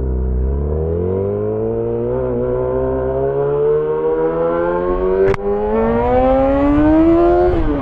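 Yamaha XJ6 S's inline-four engine through an SC-Project exhaust, pulling hard in one gear with its pitch rising steadily, then dropping sharply near the end at an upshift. A single sharp click about five seconds in.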